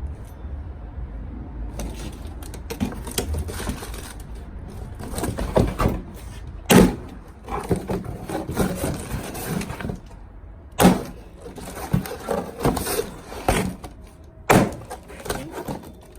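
Machete blade chopping and slicing through material in a cut test: a run of irregular cutting crackles with three sharp, loud strikes several seconds apart. A low rumble fades out about two seconds in.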